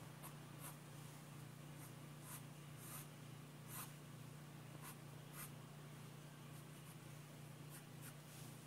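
Pencil drawing on a sheet of paper: faint, irregular scratches of short and longer strokes, over a steady low hum.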